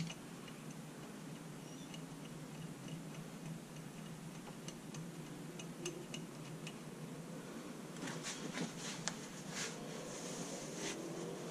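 Faint, scattered small metallic clicks and ticks of hands handling the parts of a Sanden 709 A/C compressor as its head is seated and the bolts fitted finger-tight, with a sharper click at the start and a quicker run of clicks about eight seconds in. A faint steady hum runs underneath.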